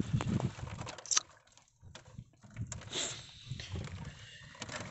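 Hands handling bait fish and longline hooks: irregular light clicks, taps and rustles, with a quiet gap about a second and a half in.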